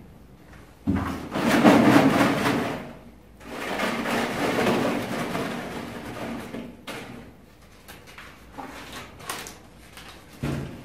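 Paper entry forms rustling and shuffling inside a clear plastic tub as it is shaken and a hand rummages through them, in two spells of a few seconds each. Then come light clicks of plastic handling, and a knock near the end as the tub is lowered.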